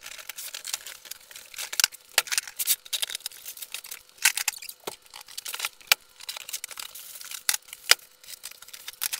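Cardboard shipping boxes being opened, with packing paper and cardboard crinkling and tearing. Sharp clicks and knocks come in between as hard plastic toolboxes are pulled out and set down on one another, the loudest a few seconds apart.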